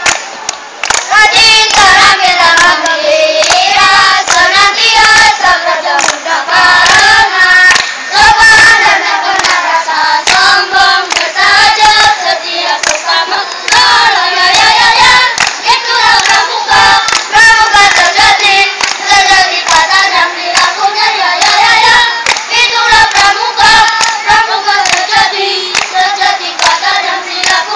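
A group of scout children singing a yel-yel cheer song loudly in unison, with hand claps mixed in.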